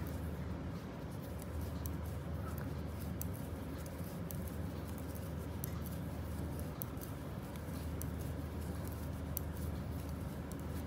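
Knitting needles clicking and scraping softly as stitches are worked in yarn, in scattered light ticks over a steady low hum.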